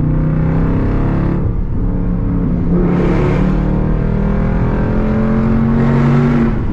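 Straight-piped Jeep Grand Cherokee SRT V8 exhaust under hard acceleration, heard from inside the cabin, the engine note rising in pitch through several long pulls.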